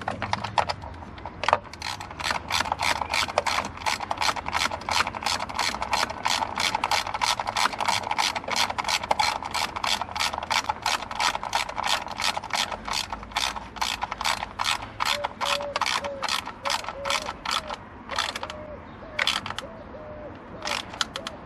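Hand ratchet clicking steadily, about three clicks a second, as the screws of a crankcase vent valve are wound down into the valve cover. The clicking stops a few seconds before the end, then a short run of clicks follows.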